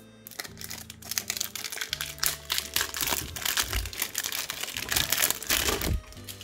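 Cellophane wrap crinkling and crackling as it is peeled and crumpled off a perfume box. The crinkling is densest in the middle and stops shortly before the end.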